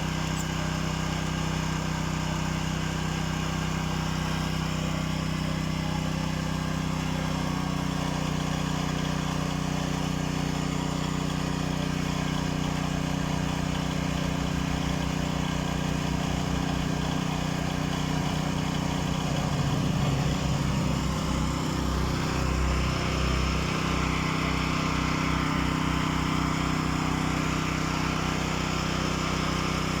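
A portable power generator's engine runs steadily with a constant low hum. From about halfway through, the hum begins to throb, and a little past twenty seconds a hiss rises over it.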